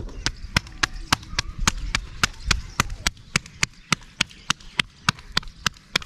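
Knife chopping on a wooden board: sharp, even knocks at about three to four a second.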